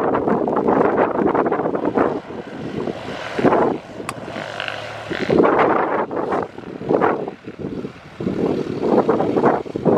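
Twin piston-engine propeller airplane taxiing, its engines running at low taxi power, overlaid by gusty wind buffeting the microphone that makes the level swell and drop unevenly.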